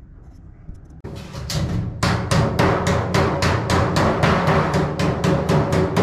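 Rapid hammer blows on a galvanized sheet-metal plenum box, about four a second from about two seconds in, each blow ringing through the box like a drum: the last corner seam being hammered together.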